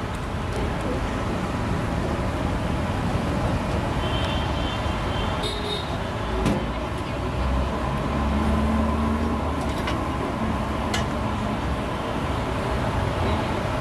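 Steady street traffic noise, with a vehicle engine drone swelling for a couple of seconds in the middle and a few short clicks and clatters.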